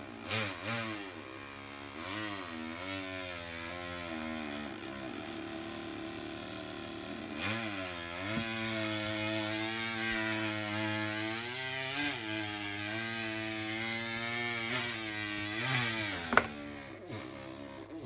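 A person imitating a chainsaw with their voice, a buzzing drone that revs up and down in pitch as if the saw were biting in and easing off, then holds a long wavering buzz. A brief sharp sound near the end is the loudest moment.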